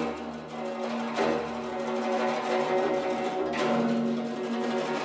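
Guzheng (Chinese zither) played solo: many plucked strings ringing together, with fresh sharp attacks about a second in and again about three and a half seconds in.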